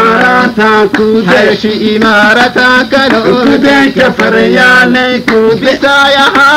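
Harari song: singing over steady held accompaniment notes, continuous and loud.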